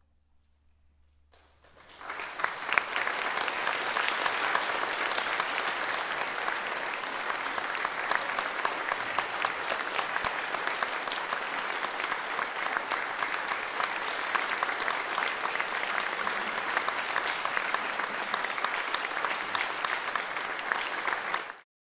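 A moment of near silence, then audience applause starts about two seconds in. It carries on steadily and cuts off suddenly near the end.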